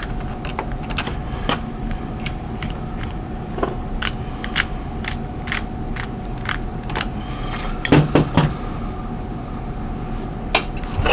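Scattered small metal clicks and scrapes of a screwdriver working at a rusty American Lock padlock to pry it apart, with a louder cluster of knocks about eight seconds in, over a steady faint hum.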